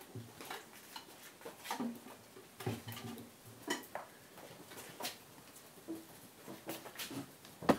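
Deerhound lurcher puppies' claws clicking and paws pattering on a ceramic tile floor as they walk and trot about, in irregular sharp ticks a few times a second.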